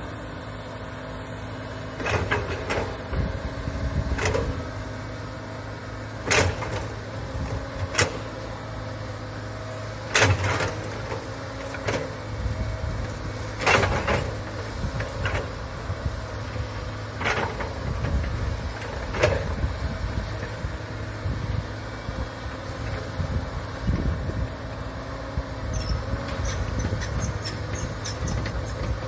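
Komatsu hydraulic excavator's diesel engine running steadily while it digs. A series of sharp knocks comes every couple of seconds over the engine hum.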